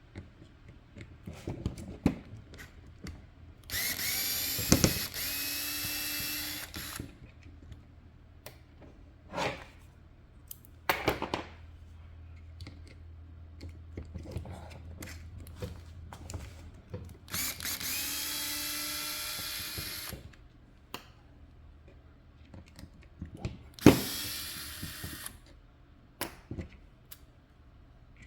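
Electric screwdriver with a #1 Phillips bit running in three short bursts, the longest about three seconds, taking out the small screws holding the RC car's top. Light clicks and knocks of screws and plastic parts being handled come between the bursts.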